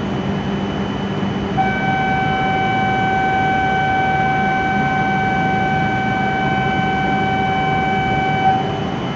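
Electronic warning tone for the closing train doors and platform gates, sounding one long steady note for about seven seconds, starting a second and a half in, over a steady background hum.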